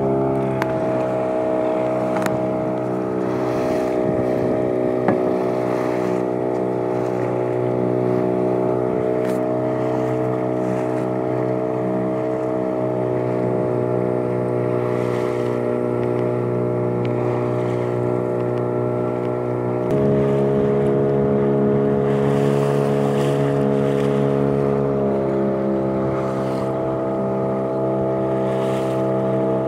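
A small fishing boat's motor runs steadily underway with an even, unchanging note. About two-thirds of the way through, the engine note shifts abruptly and gets a little louder.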